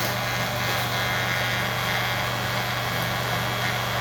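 Electric hair clipper running with a steady low hum, its freshly sharpened blade being tested.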